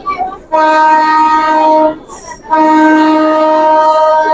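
Train horn sounding two long, steady blasts, each about one and a half to two seconds, with a short break between them.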